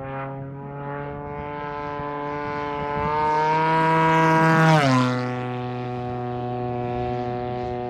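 Propeller-driven RC model aircraft engine flying past. Its note climbs and grows louder as the plane approaches, then drops sharply in pitch about five seconds in as it passes and moves away.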